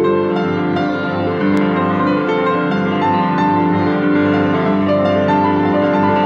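Classical piano music: a flowing passage of held chords and melody notes.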